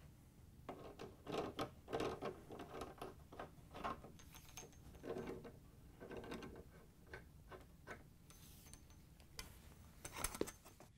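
Pliers gripping and turning the metal couplings of washer fill hoses on brass shutoff valves, unscrewing them: faint, irregular clicks, scrapes and creaks of metal on metal. A few sharper clicks come near the end.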